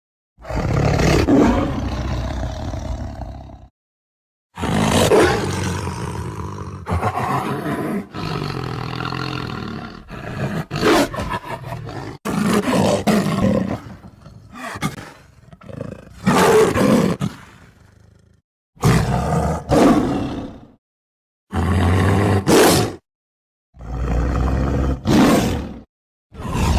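Tiger roaring: a string of about ten separate roars and growls, each one to three seconds long, with short gaps of silence between them.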